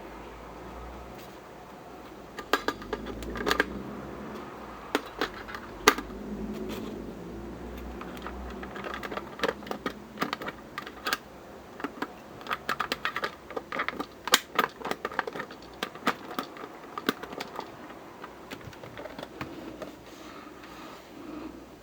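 Irregular sharp clicks and taps of small hard objects being handled, coming in loose clusters with short gaps between them.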